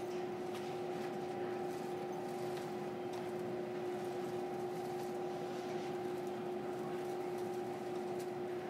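Interior of a stationary JR Kyushu 305 series electric train car: a steady electrical hum from its onboard equipment, two unchanging tones over a soft even background noise, with a few faint ticks.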